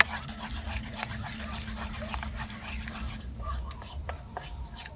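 A spoon clicking and scraping against a metal camping pot as raw egg batter with chopped onion is stirred, over crickets chirping in a steady, rapid pulse.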